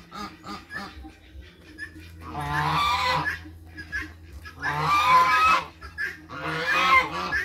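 Domestic geese honking: a quick run of short calls in the first second, then three long, loud honks about two seconds apart.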